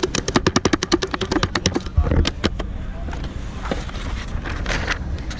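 Grip tape being worked onto a new skateboard deck: a quick run of scratchy strokes, about ten a second, for the first few seconds, then a thump and a few scattered scrapes.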